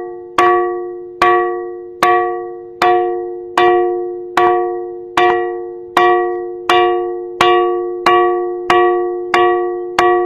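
A ringing 'bell rock' boulder struck over and over, about once every 0.8 seconds and a little faster near the end. Each strike gives a clear, bell-like ring of a few steady tones that dies away before the next.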